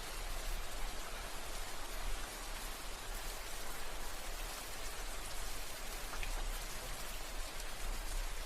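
Steady rain falling: an even hiss with scattered sharper drop ticks, over a constant low rumble.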